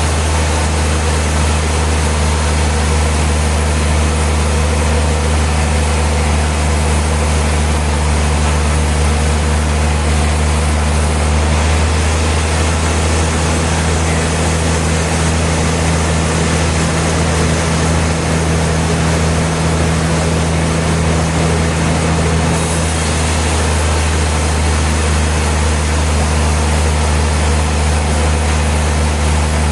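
Sawmill machinery running steadily: a deep, even engine hum under a constant rushing noise, without pauses.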